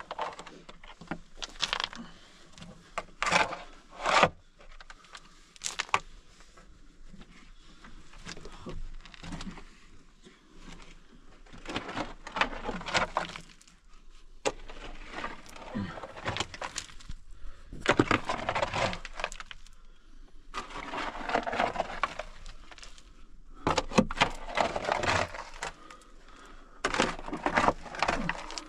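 Shovel digging and scraping into dry, stony earth in irregular strokes, the blade grating through soil and knocking against small stones.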